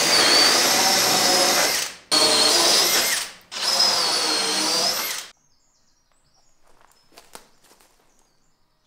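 Cordless drill boring holes into a wooden board, run in three bursts: one ending about two seconds in, then two more of about one and a half to two seconds each, stopping about five seconds in. After that only a few faint light knocks.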